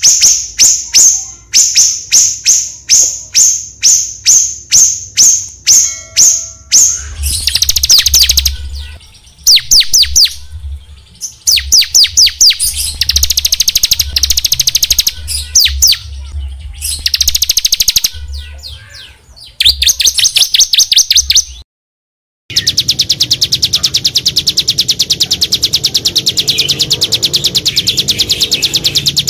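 Small songbirds singing: a string of sharp repeated chirps, two to three a second, gives way to fast bursts of down-slurred trill notes. About two-thirds of the way through, the sound cuts out for a moment, and a rapid, unbroken high trill follows.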